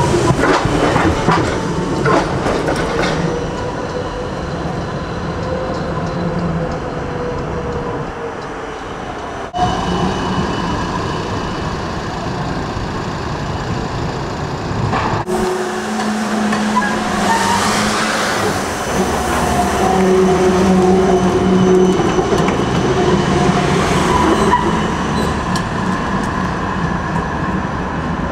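Electric street trams running on track, the hum of wheels on the rails mixed with a steady whining tone from the motors. There are abrupt changes twice, about a third and about halfway through.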